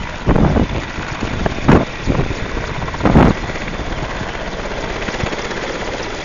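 A Russian twin-turbine Mi-8 helicopter flying in low to land, its rotor and engines running steadily. Loud gusts of wind hit the microphone three times in the first half.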